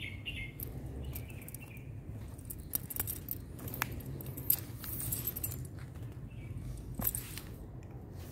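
Footsteps and handheld-phone handling noise while walking with a dog on a concrete path, with scattered clicks and a few short bursts of light metallic jingling.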